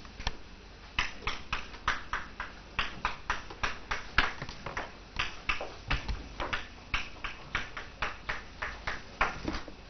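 Writing on a board by hand: a quick, irregular run of short scratchy strokes, about three a second, starting about a second in and stopping near the end.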